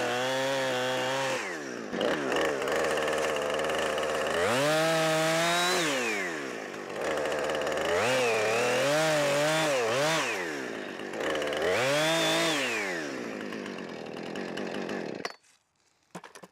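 Husqvarna 455 Rancher two-stroke chainsaw cutting through a log, revving up and dropping back four times, its pitch wavering while in the cut. The engine stops abruptly near the end, followed by a brief faint clatter.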